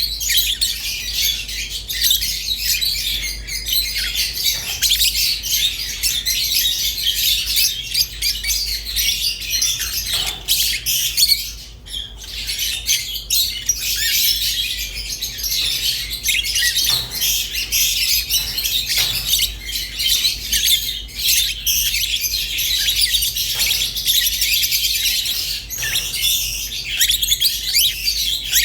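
Rosy-faced and Fischer's lovebirds chirping, a dense, unbroken stream of high-pitched chirps and calls from several birds, with a brief lull about twelve seconds in.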